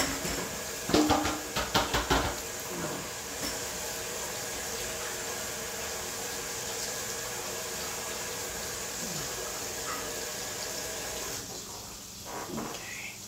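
Kitchen tap running in a steady hissing stream, with a few sharp knocks about a second in. The water shuts off near the end.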